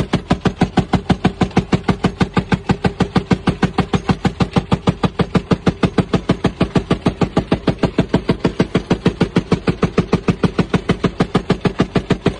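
12.7 mm Browning M2 heavy machine gun firing one long continuous burst at a steady rate of about seven or eight shots a second, starting suddenly, heard at close range from beneath the gun mount.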